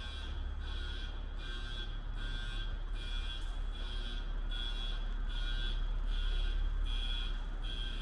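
An electronic warning signal beeps over and over, about one and a half short tones a second, with a low rumble underneath.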